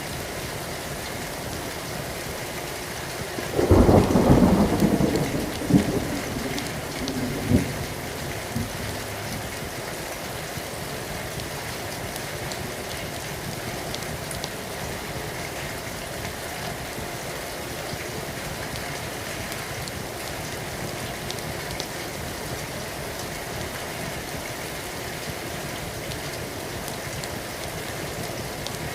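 Steady heavy rain falling, with a loud clap of thunder about four seconds in that rumbles on for about four seconds, with a couple of sharper cracks as it fades.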